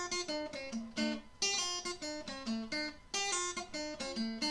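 Intro music: an acoustic guitar playing a melody with plucked notes, a few each second.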